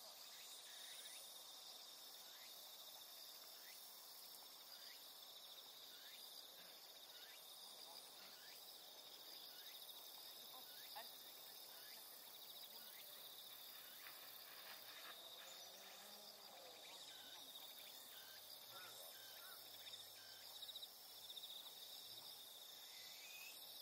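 Faint, steady high-pitched trilling of insects such as crickets, with short falling chirps scattered through.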